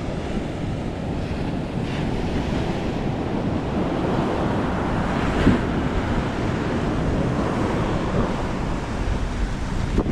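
Surf washing onto a beach, with strong wind buffeting the microphone as a steady low rumble. A brief louder gust or rush comes about halfway through.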